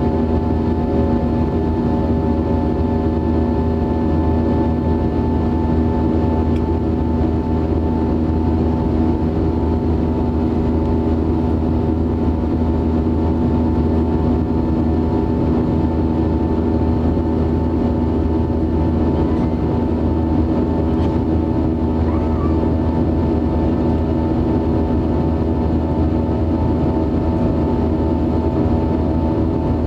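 Airbus A320-232's IAE V2500 turbofan engines and airflow heard inside the cabin during the climb: a steady drone with several constant humming tones over a low rumble and rush of air.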